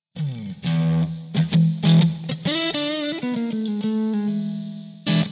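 Intro music on electric guitar: a short riff of plucked notes and a downward run, ending on one struck chord near the end.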